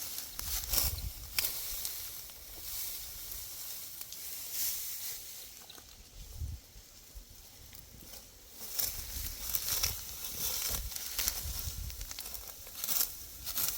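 Crisp, irregular rustling and swishing of dry wheat stalks being cut and handled, with wind rumbling on the microphone; it eases off for a couple of seconds midway, then picks up again.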